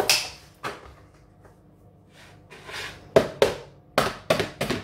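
Sharp knocks and clatter of items against hard kitchen surfaces: two knocks at the start, softer ones in the middle, then five quick, loud knocks in the second half.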